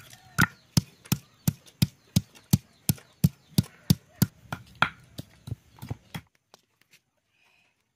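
Round grinding stone pounding a root against a grooved stone slab: a steady run of sharp knocks, about three a second, that stops suddenly about six seconds in.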